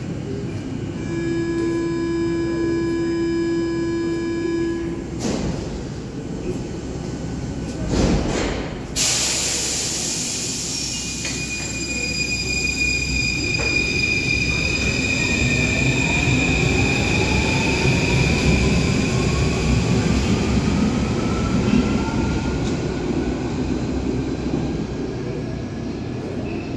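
Paris Métro MF01 train at a platform: a steady door-warning buzzer sounds for about four seconds, the doors shut with two knocks, a sudden hiss follows, and the train pulls away with its traction motors giving a long rising whine over the rumble of the wheels, getting quieter near the end as it leaves.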